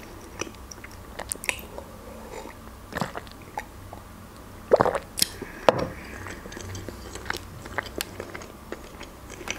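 Close-up eating and drinking sounds: sips from a mug and chewing, with scattered small mouth clicks and a louder pair of sounds about five seconds in.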